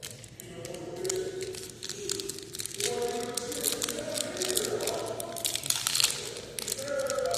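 Foil wrapper of a trading card pack crinkling and tearing as it is opened, in many quick sharp crackles.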